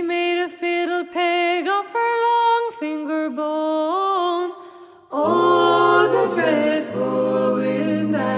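Unaccompanied folk vocal music: a wordless sung melody of held, sliding notes over a steady low drone, dipping briefly about five seconds in before picking up again.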